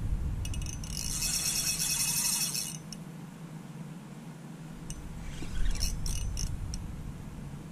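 Fishing reel ticking rapidly for about two seconds, then a few short clicks, while a fish on the line is played on a bent spinning rod; low handling rumble underneath.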